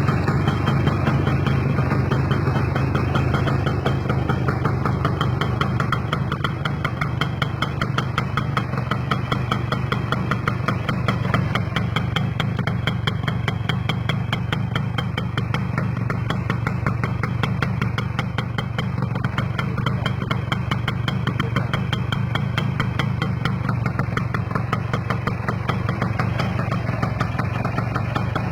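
Kawasaki GTO motorcycle's two-stroke single-cylinder engine idling steadily, with no revving.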